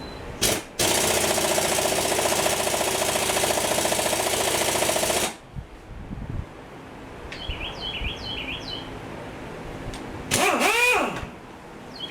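Pneumatic impact wrench hammering on a thin flywheel bolt of a Chevy 216 engine: a quick blip, then about four and a half seconds of steady rapid hammering that stops abruptly. Near the end comes a second short burst whose pitch rises and falls as the wrench spins. Faint bird chirps sound in between.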